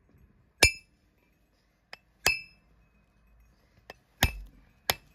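Farrier's hammer striking the nails and steel shoe on a donkey's hoof: four sharp, ringing metal blows spaced unevenly, with two lighter taps in between.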